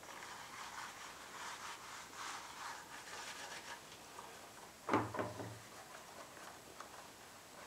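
Hands rubbing wax into a leather knife sheath: faint, uneven scratchy rubbing, with one sharp knock about five seconds in.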